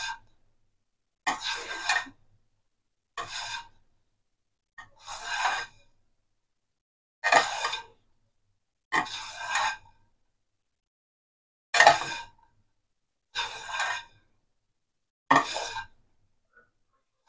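A hand rubbing and scraping damp beaten-rice (aval) flour against a nonstick pan, about eight rough strokes, each under a second, one every one and a half to two seconds. It is the sound of puttu flour being moistened with a little water and worked by hand into crumbs.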